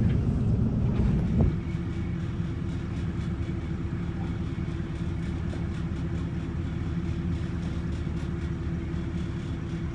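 A boat engine runs at a steady low drone with a constant hum. A louder stretch of engine and water noise cuts off about a second and a half in.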